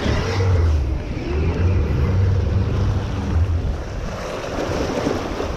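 Water rushing and splashing along the hull of a boat moving through the swell, with wind buffeting the microphone and a steady low rumble underneath.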